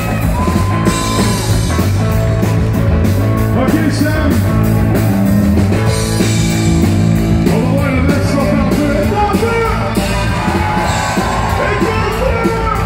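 Live rock-and-roll band playing: electric guitar, bass guitar and drums, with a man singing lead into a microphone.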